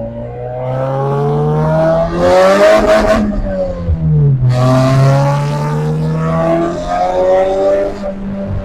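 Car engine accelerating hard: revs climb, fall back about three to four seconds in, then climb again, with loud exhaust noise at the peaks.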